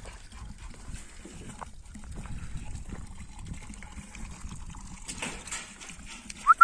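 Footsteps crunching on a stony dirt track, with wind rumbling on the microphone. Right at the end comes a short, quick, rising whistle-like chirp.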